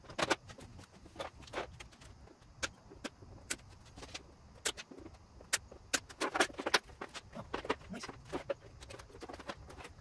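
Irregular clicks, knocks and clinks of hand tools and scooter parts being handled as the front of a budget scooter is taken apart. The clicks come thickest and loudest about six to seven seconds in.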